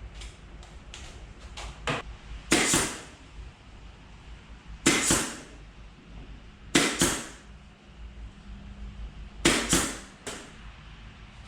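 Pin nailer firing pins into pallet-wood strips: four sharp shots a couple of seconds apart, each with a short hissing tail, with lighter clicks of the tool being set against the wood in between.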